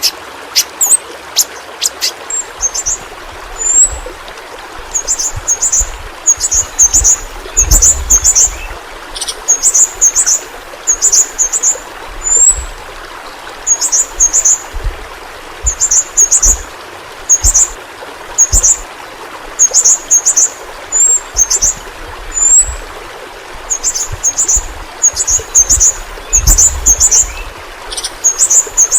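Yellow-rumped flowerpecker (pentis pelangi) calling: short, very high-pitched chips, often two or three in quick succession, repeated about every second over a steady hiss.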